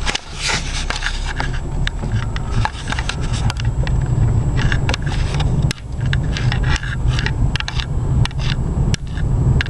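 Vehicle driving slowly down a rough ravine road: a steady low engine and road rumble with frequent irregular clicks and rattles.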